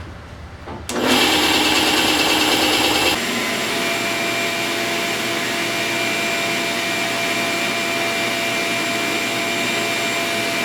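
A power tool's motor starting about a second in and running steadily with a whine, louder for the first couple of seconds and then a little quieter.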